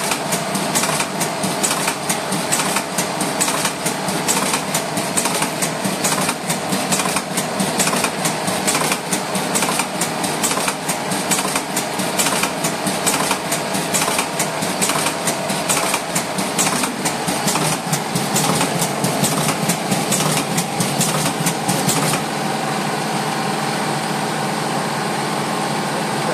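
Cigarette rolling machine running, with a rapid, even clicking of its mechanism over a steady motor hum. Near the end the clicking stops and only the steady hum goes on.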